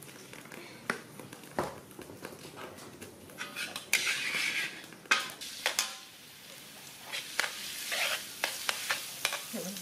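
Minced garlic sizzling in hot oil in a steel wok, with a metal ladle clinking and scraping against the wok as it is stirred. The sizzle starts about four seconds in.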